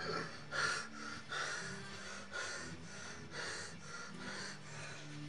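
A man breathing heavily and fast, rasping breaths repeating at about two a second.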